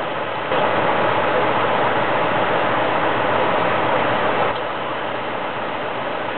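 Steady rushing noise of storm wind with a truck engine idling; the rushing drops a little about four and a half seconds in.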